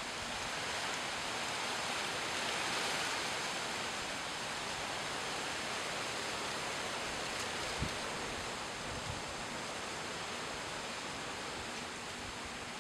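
Steady rushing outdoor background noise, without any bird call, swelling slightly a few seconds in, with one faint knock near the middle.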